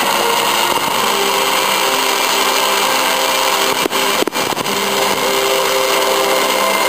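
Fireworks display going off without pause as a dense, steady noise of many bursts, with two sharper bangs about four seconds in.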